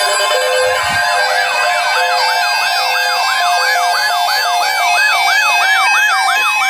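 Electronic emergency alert tone: a wailing sweep rising and falling about three times a second over steady and beeping synthetic tones, the alert signal that comes before a severe thunderstorm watch announcement.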